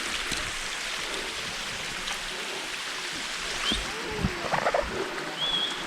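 Rushing mountain water of a waterfall, a steady hiss. A few thumps land about four to five seconds in.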